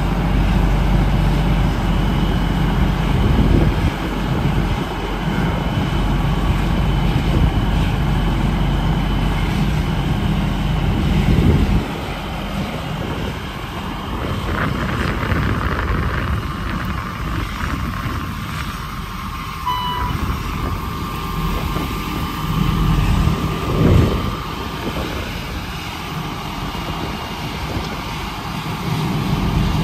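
Heavy diesel truck engine running steadily with a deep rumble, easing off briefly about twelve seconds in.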